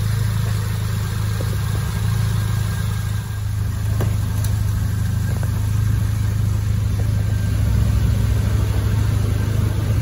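Peugeot 206 engine idling steadily while it warms up after a coolant refill. A couple of faint clicks come about four seconds in.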